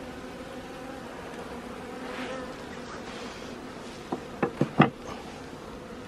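A mass of honeybees on an opened nuc box buzzing in a steady hum. A few short sharp knocks come about four seconds in.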